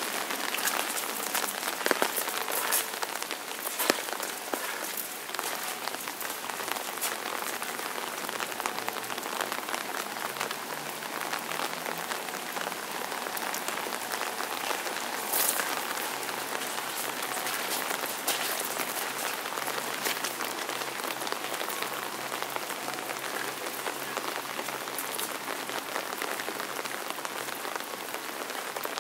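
Steady rain falling on asphalt pavement, an even hiss dotted with sharper ticks of single drops. A faint low hum joins about ten seconds in.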